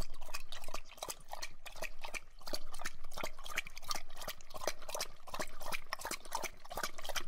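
A cat lapping liquid from a small ceramic bowl: a quick, irregular run of wet clicks and slurps, several a second.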